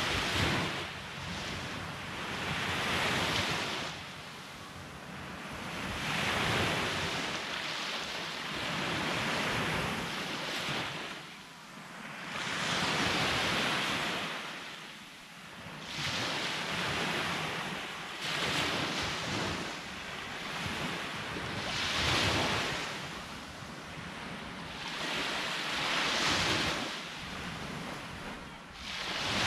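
Sea waves breaking and washing up on a beach, one after another every three to four seconds.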